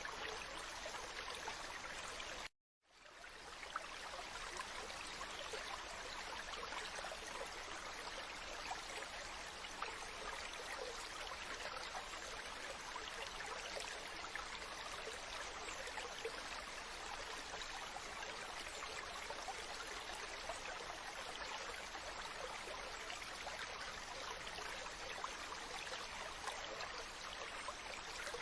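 Steady rushing water with a fine, fizzing texture. About two and a half seconds in it cuts out to silence for a moment, then fades back up over about a second.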